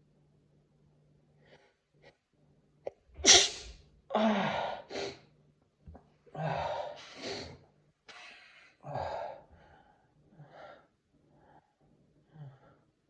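A man sneezing. A sudden, very loud sneeze comes about three seconds in, followed by a run of further sneezes and breaths that grow weaker toward the end.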